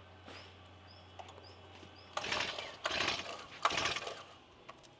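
Petrol brush cutter being pull-started: three pulls of the recoil starter cord, each about half a second, and the engine does not catch. The owner puts the hard starting down to fuel clogged in the lines after long disuse.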